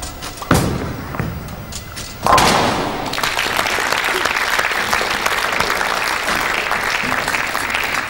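A bowling ball thuds down on the wooden lane, and about two seconds later it hits the pins with a crash. Crowd applause follows at once and continues steadily, greeting a converted spare.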